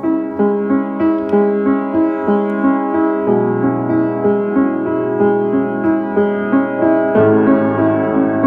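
Piano music: an even run of struck notes over held chords. The harmony changes about three seconds in and again near the end.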